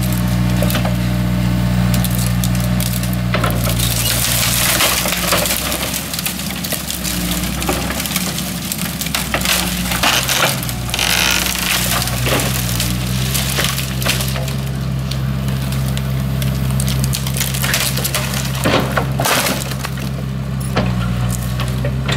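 Excavator's diesel engine running, its pitch shifting as the hydraulics take load, while tree branches crack and snap in the grapple, with a dense burst of breaking wood about ten seconds in.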